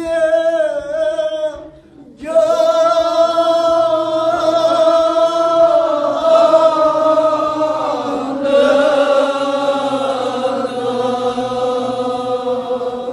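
A group of men chanting a Kashmiri marsiya, a mourning elegy, with unaccompanied voices. A held line breaks off briefly about two seconds in, then the group sustains a long, slow chanted line with drawn-out notes.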